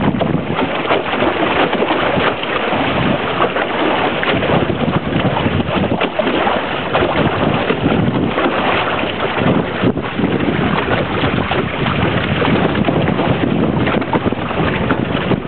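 Water rushing and splashing steadily past the hull and outrigger of a sailing outrigger canoe under way, mixed with wind buffeting the microphone.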